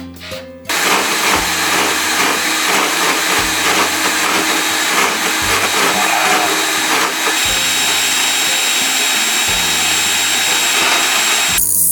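A power tool running steadily, starting about a second in and stopping just before the end, over background music.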